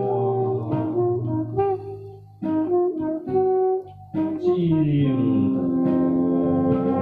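Saxophone playing a slow melody, with short breaks between phrases about two and four seconds in. A trumpet joins near the end and the sound grows fuller.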